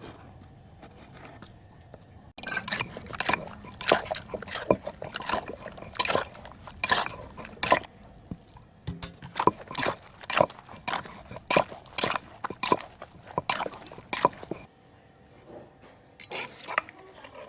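Wooden pestle pounding in a Thai mortar (krok), preparing a som tam–style salad: a steady run of sharp knocks at about two a second that starts a couple of seconds in and stops suddenly near the end. A few fainter knocks follow.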